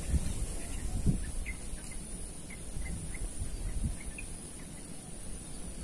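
Outdoor pond-side ambience: a steady high insect drone with scattered short bird chirps over a low wind rumble on the microphone, and a soft thump about a second in.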